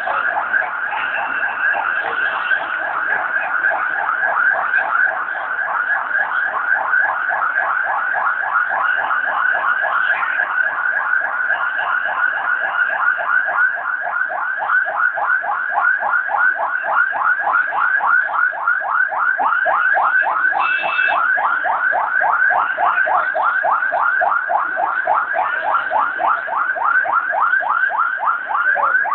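Electronic alarm siren warbling continuously, its pitch sweeping up and down about three times a second. A brief higher tone cuts in about two-thirds of the way through.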